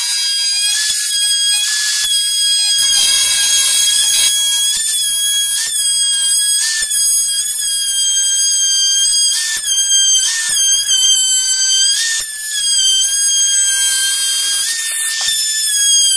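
Handheld trim router with a flush-trim bit running at a steady high whine while it trims the overhanging edge of a glued-up wooden keel. The whine dips in pitch for a moment, with a short burst of cutting noise, each time the bit bites into the wood, several times over.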